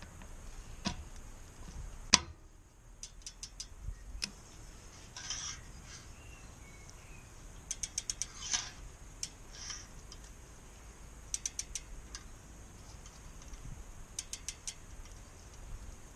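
Torque wrench ratchet clicking in short runs of four or five quick clicks, tightening a road bike cassette lockring through a 24 mm socket. There is one louder sharp click about two seconds in.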